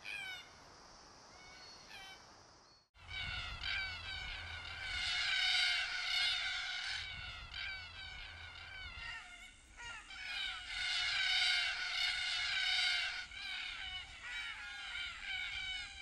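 A flock of red-tailed black cockatoos calling: a few faint calls at first, then after a sudden cut a large flock calling together, many harsh, grating cries overlapping in a dense chorus that swells twice.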